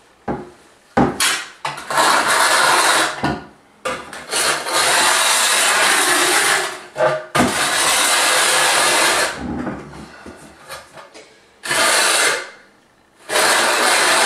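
Steel notched trowel scraping thinset mortar across the back of a porcelain tile in several long, rasping strokes, back-buttering the tile before it is set. A few short knocks near the start, as the trowel works in the mortar bucket.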